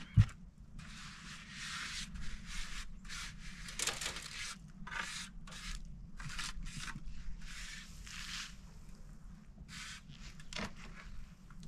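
A mason's trowel scraping and spreading mortar along the top of a concrete block wall, in a run of short rasping strokes of about half a second to a second each. One sharp low thump just after the start.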